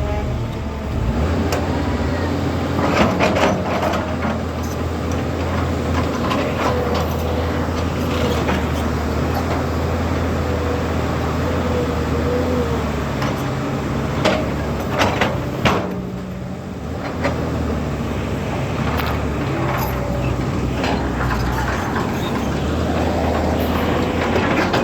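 Heavy excavator diesel engine running steadily, its pitch shifting as it works, with several sharp metallic knocks about three seconds in and again around fourteen to sixteen seconds.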